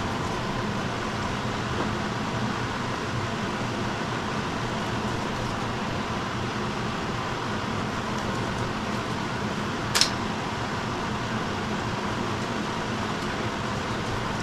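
Steady fan-like machine hum with faint steady tones, and one sharp click about ten seconds in.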